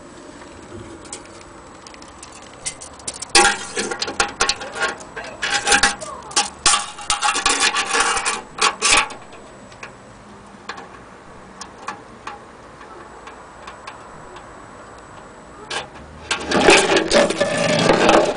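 Irregular clicks and rattles of a steel tape measure being handled against the sheet-metal gramophone horn, with a few scattered clicks after. Near the end comes a louder burst of rubbing and handling noise.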